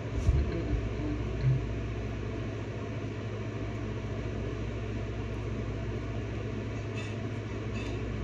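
Steady low background hum, with a couple of soft knocks near the start and faint clicks near the end.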